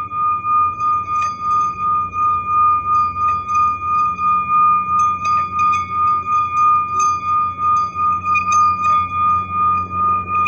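Metal singing bowl rubbed around its rim with a wooden striker, giving one sustained ringing tone with a higher overtone that wavers in steady pulses about three times a second. A few light clicks from the striker on the rim.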